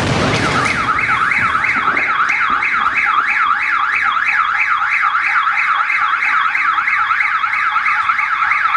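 Car alarm warbling in a fast up-and-down wail, about three sweeps a second, starting right after a firework's loud blast, whose rumble dies away in the first second.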